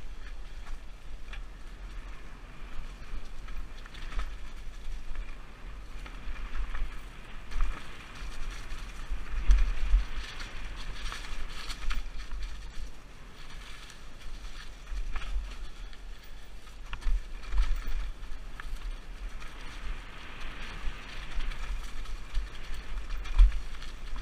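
Mountain bike riding down a rough dirt and rock trail: the tyres crunch and skid over stones and dry leaves, with frequent rattles and knocks as the bike hits bumps, and a hard thump about nine seconds in and another near the end. Wind buffets the helmet camera's microphone throughout as a low rumble.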